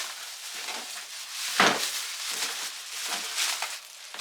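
Cardboard box and packing being handled: irregular rustling and scraping, with one sharper knock about one and a half seconds in.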